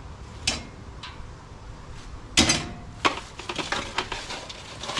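Metal strainer and tongs clanking against a stockpot as deep-fried fish pieces are lifted out of the oil. There is a sharp knock about half a second in, then one loud clank with a short ring about two and a half seconds in, followed by a run of light rattling clicks.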